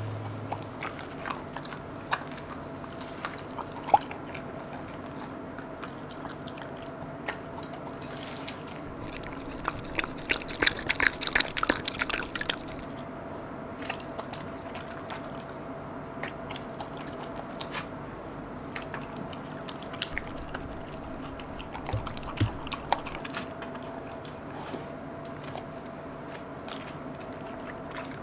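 A dog eating rice cake soup from a glass bowl: chewing and biting, with small sharp clicks of teeth against the glass. The eating gets denser and louder around ten to twelve seconds in. A faint steady hum runs underneath.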